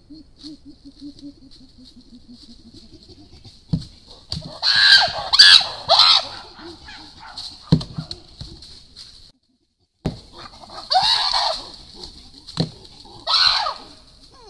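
Chimpanzee calling while throwing stones at a tree: a run of soft rhythmic hoots builds into loud screaming climaxes, twice, with four sharp knocks of stones striking the trunk and stones around it.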